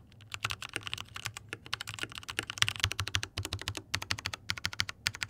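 Mechanical keyboard, its switches lubed and its case filled with silicone, being typed on quickly: a dense run of short keystrokes with a few brief pauses.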